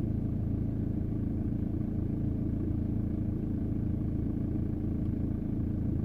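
A 2003 VW Passat B5's 1.9 TDI four-cylinder Pumpe-Düse turbodiesel idling steadily, with a rattle from the engine bay. It is a plastic or rubber sort of rattle, like something shaking with the engine, and its cause is still unknown: the engine cover has been ruled out, and the owner suspects the coolant bottle.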